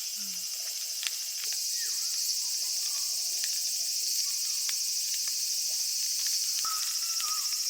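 Evening insect chorus of higurashi (evening cicadas), a high pulsing trill that grows louder about a second and a half in, with scattered sharp clicks.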